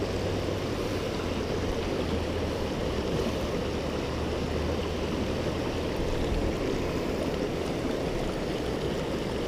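Shallow rocky stream running over riffles: a steady wash of flowing water.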